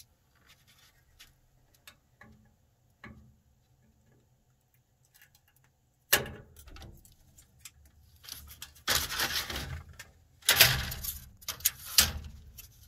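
Scissors snipping through a silicone-sleeved LED light strip about six seconds in, preceded by faint clicks of handling. Loud rustling handling noise follows in two long stretches.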